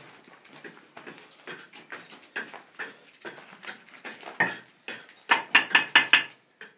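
Steel trowel clinking against mortar and concrete blocks as a block wall is laid, ending in a quick run of sharp taps near the end.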